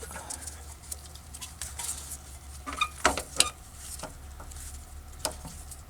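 A replacement starter motor being worked up into place under the truck: scattered metallic clinks, scrapes and knocks as it bumps around the lines, with a cluster of louder knocks about three seconds in.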